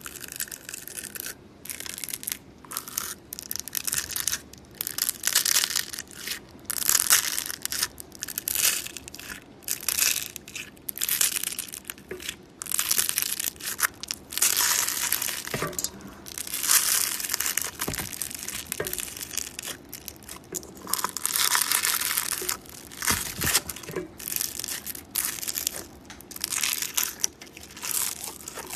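Slime being squeezed and worked by hand, giving irregular short crackling bursts that come about once a second.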